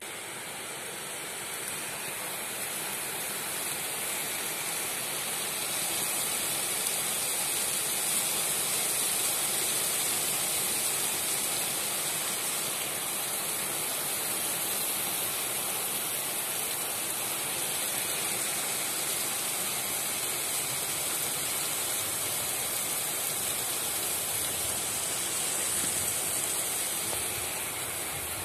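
Rain falling steadily in a thunderstorm, an even, unbroken hiss.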